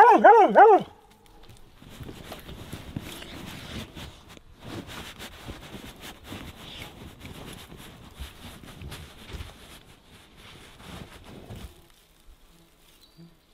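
A dog gives a quick run of high whining yips, about four rising-and-falling cries in under a second. Fainter, indistinct low sounds follow.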